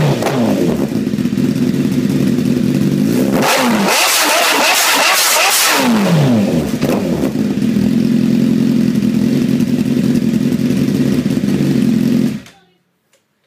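Warm 2012 Honda CBR1000RR inline-four revved through an Austin Racing GP Ultimate exhaust. Quick throttle blips lead into a long high rev a few seconds in, which falls away, and the engine then runs steadily before stopping suddenly near the end.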